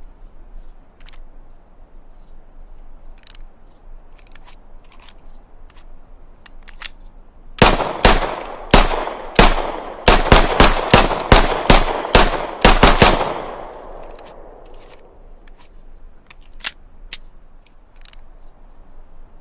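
Browning Hi-Power pistol fired about fifteen times in a row, the first few shots spaced out and the rest coming quickly at about three a second. The last shot rings out and fades.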